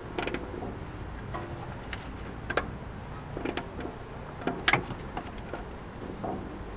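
Hand ratchet turning a brake line bracket bolt on a front strut: short runs of ratchet clicks and metal clinks at uneven intervals, loudest just past halfway.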